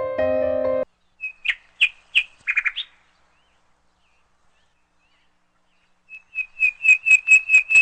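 A small bird chirping: a few short high calls early on, then after a few seconds' silence a quick run of repeated chirps, about five a second. Piano music plays for the first second and stops.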